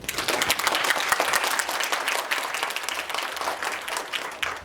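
Audience applauding, fading away toward the end.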